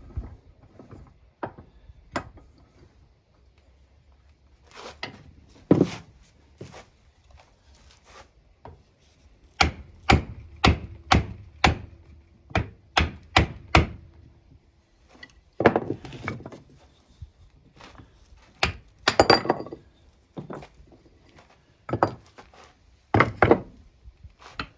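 Hammer knocks driving parts out of a wood lathe's headstock during bearing removal: a quick run of about a dozen sharp knocks, roughly two and a half a second, in the middle, with scattered single knocks and a few longer rattling clatters of loose parts around it.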